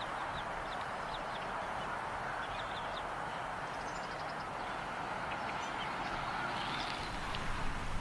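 Steady rushing outdoor ambience with a few faint, short, high bird chirps scattered through it.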